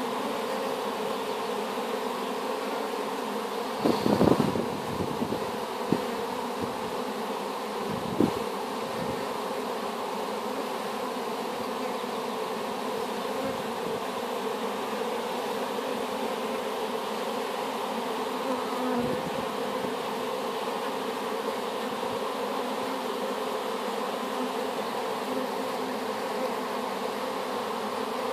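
Steady buzzing hum of a honeybee colony at the hive entrance, many bees flying close around it: a swarm newly settled into its hive. A few brief bumps break in, the loudest about four seconds in.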